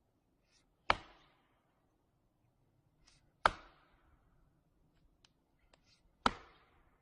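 An axe chopping into wood: three hard strikes, each with a brief swish just before and a short ringing tail, about every two and a half to three seconds.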